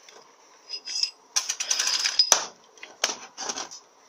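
Metal clatter and clinks from a Powerglide clutch drum being handled and set down on a ribbed metal workbench. The longest, densest burst is in the middle and ends in a sharp knock, and a shorter burst follows near the end.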